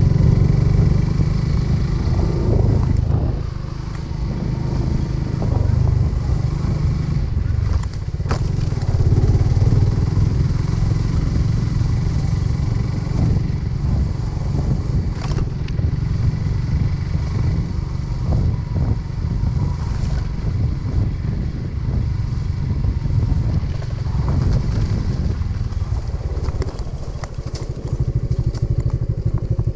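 Suzuki Gixxer motorcycle's single-cylinder engine running steadily while riding a rough dirt track, under a heavy low rumble, with a few brief knocks and rattles from the bumpy ground.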